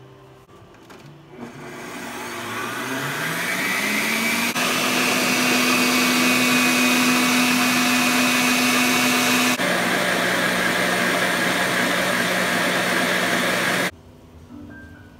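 Electric stand mixer with a wire whisk beating egg whites in a stainless steel bowl. The motor winds up to speed over about three seconds and runs with a steady whine, drops to a lower steady tone a little past halfway, then cuts off abruptly near the end.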